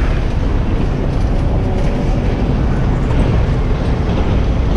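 Steady low rumble of town-centre traffic passing along the street.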